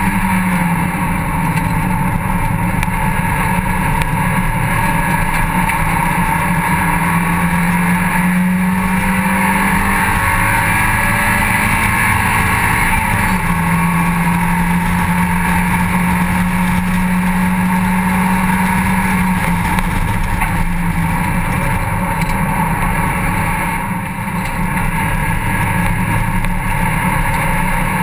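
Mazda MX-5 cup race car's four-cylinder engine running hard at track speed, heard from inside the open cockpit. Its pitch holds steady for long stretches and shifts a few times, and the sound dips briefly near the end.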